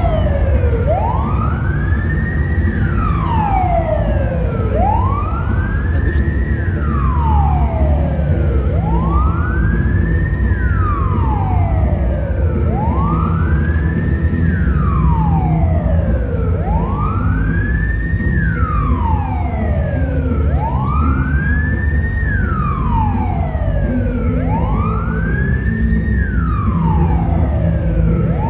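A GAZelle Next resuscitation ambulance's siren wailing. It makes a slow rising and falling tone: about a second and a half climbing and about two seconds sliding back down, repeating roughly every four seconds. A steady low rumble of vehicle noise runs beneath it.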